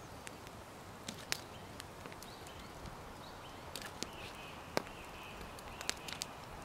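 Wood campfire crackling: irregular sharp pops and snaps over a steady low hiss.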